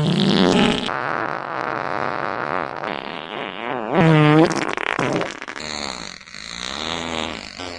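A continuous run of fart sound effects from the iFart app, one buzzy, wobbling-pitched fart after another with no pauses. The loudest is a high, squeaky one about four seconds in.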